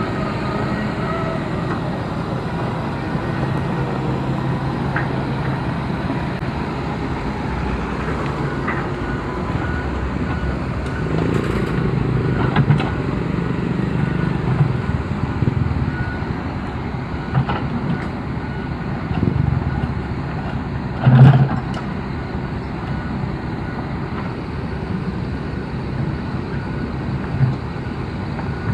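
Heavy machinery engine running steadily, with a few short clanks about a third of the way through and a single loud knock about two-thirds in.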